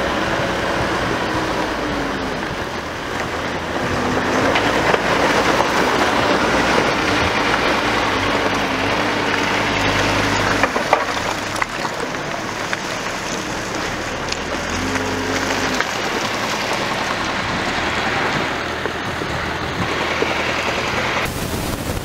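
Hidromek backhoe loader's diesel engine running as the machine works its front bucket through soil and rock, with the engine pitch rising and falling now and then under changing load.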